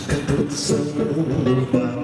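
Bossa nova song: a man singing to his own fingerpicked chords on a hollow-body electric guitar.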